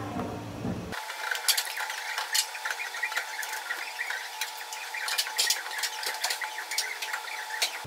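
Scattered light clicks, knocks and scraping as the shop floor is mopped among the chairs and tables, over a faint steady hum.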